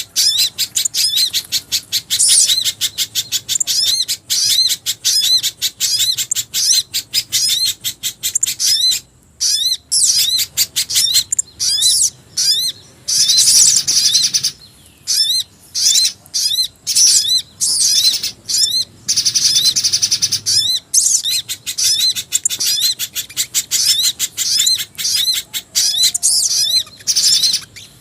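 Bird-lure recording of pijantung gunung (spiderhunter) and jingjing batu (flycatcher-shrike) calls: a fast, unbroken string of short, high chirps, several a second, with a couple of brief breaks.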